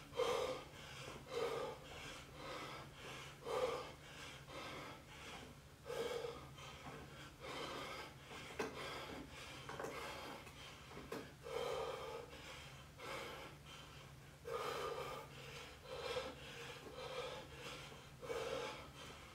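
A man breathing hard while doing air squats, a short puffed exhale every one to two seconds, over a faint steady low hum.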